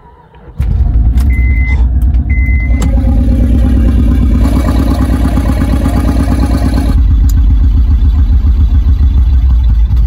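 2006 Honda Pilot's 3.5-litre V6 catching about half a second in and running loud and low, heard close to the exhaust beneath the car, with two short electronic beeps about one and two seconds in. It is still not running right after new spark plugs and ignition coils.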